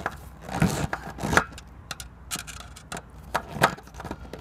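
Screwdriver tightening the screws of a metal cable clamp on a plastic solar panel junction box, clamping the DC cable down. It makes a string of irregular short clicks and scrapes as the tip works the screw heads.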